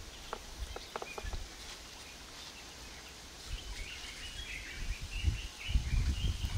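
A bird chirping a quick run of notes from about halfway through, over a few soft knocks early on and a low rumble near the end.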